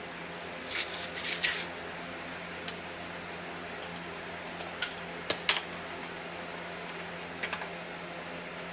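Handling noises while food is plated: a short burst of crinkling about a second in, then a few scattered clicks and taps, over a steady low hum.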